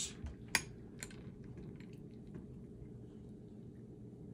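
Quiet handling of a metal cocktail shaker and a glass shot glass: two short sharp clicks about half a second and a second in, then a faint trickle of liquid as the shot is poured from the shaker into the glass.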